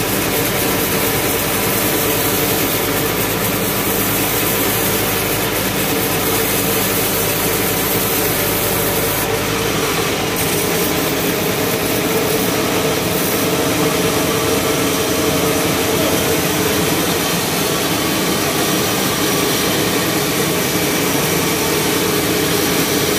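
Sawmill band saw running and cutting lengthwise through a cempedak log, a loud, steady machine noise with a steady hum; the lowest rumble drops away about halfway through.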